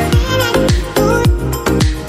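Upbeat electronic background music with a steady, fast beat and held synth notes.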